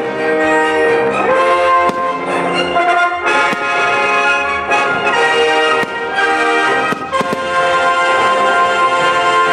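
Brass band playing, with sustained chords of held brass notes that change every second or so. A few sharp bangs cut through now and then.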